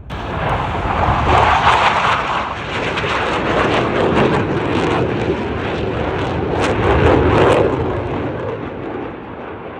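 Jet engine roar of Blue Angels Boeing F/A-18 Super Hornets flying past. It is loudest about a second and a half in and again about seven seconds in, then dies down near the end.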